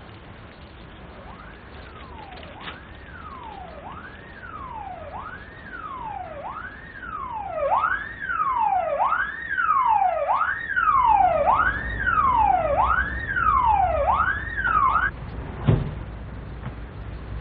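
Emergency-vehicle siren wailing, each rise and fall about a second and a quarter long, growing louder as it approaches and then cutting off. A low engine rumble comes in under it, and there is a single thump near the end.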